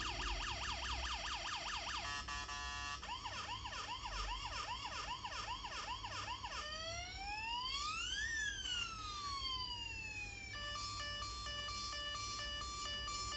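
Toy police car's electronic siren cycling through its sounds. A fast repeating wail gives way to a short stepped warble, then a slower wail, then one long rising-and-falling sweep. Near the end it switches to a steady beeping tune.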